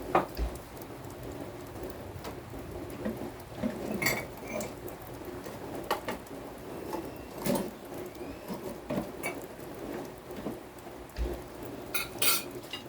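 Steady rain, with irregular sharp taps and clinks of drops striking hard surfaces.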